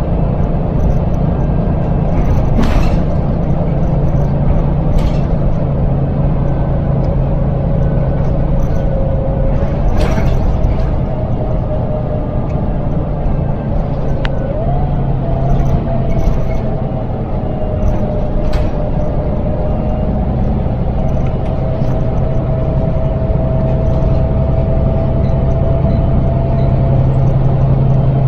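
Volvo B7L single-deck bus heard from inside the saloon while under way: its six-cylinder diesel runs with a steady low drone and a thin whine that drifts and jumps in pitch a couple of times. A few short knocks and rattles from the body come through.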